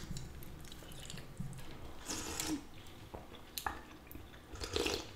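Quiet eating sounds: a plastic soup spoon dipping into a bowl of pho broth, with soft slurps and chewing in a few brief bursts.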